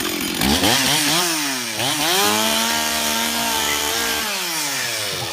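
Stihl 044 two-stroke chainsaw with a freshly sharpened chain, revved up to full throttle. Its pitch climbs over the first second, dips briefly about two seconds in, holds high and steady, then winds down near the end.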